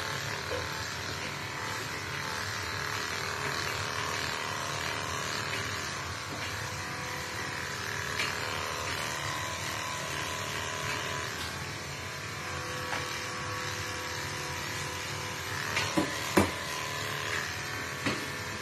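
Steady whir of an electric grooming motor running. Several sharp knocks come about three-quarters of the way in, and one more near the end.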